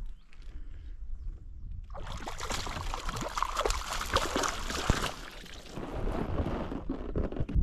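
Water splashing and gurgling around a paddled canoe, starting about two seconds in and easing off near the end.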